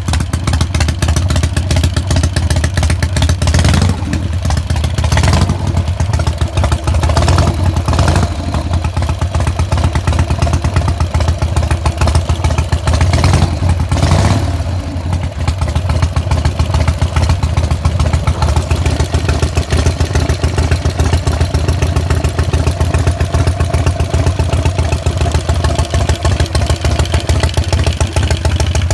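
Rebuilt Evo V-twin motorcycle engine running at idle, its throttle blipped into short revs a few times in the first half, then settling to a steady, even idle.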